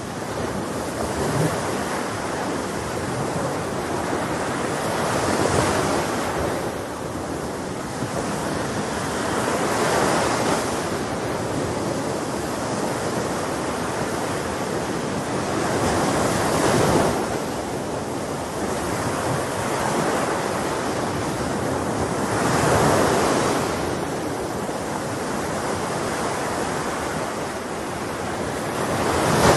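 Sea waves breaking on a shore, a swelling rush of surf about every six seconds over a constant wash of water.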